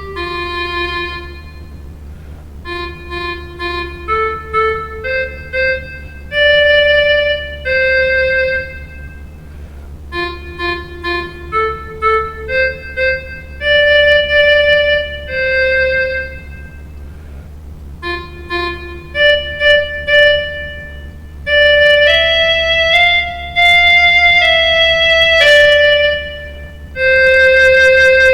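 Instrumental music: a single slow melody of held notes on a keyboard instrument with an organ-like tone, played in short phrases with brief pauses, over a steady low hum.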